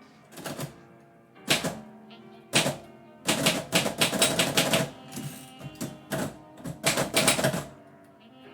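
Typewriter keys striking in quick runs of keystrokes with short pauses between words, the longest run about three seconds in.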